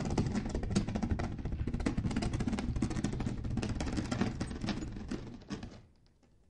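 Stones grinding and clattering against one another: a dense run of rapid clicks over a low rumble that dies away near the end.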